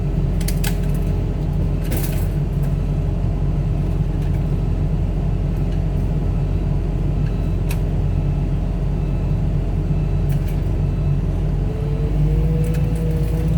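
Heavy machine's engine running steadily with a low rumble, with a few sharp metal clanks; about twelve seconds in it revs up.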